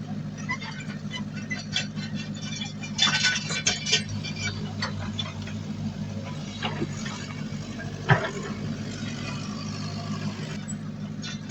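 Heavy diesel earthmoving machinery engine running steadily, with a cluster of sharp knocks and rattles about three to four seconds in and a single loud knock about eight seconds in.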